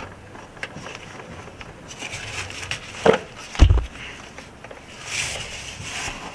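Hand work on the old handbrake cable of an Alfa Romeo MiTo as it is pulled free: scattered metal clicks and scraping, with two sharp knocks about three seconds in, the second a heavy thud.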